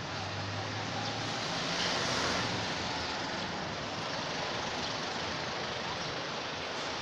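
Steady street traffic noise, swelling as a vehicle passes about two seconds in.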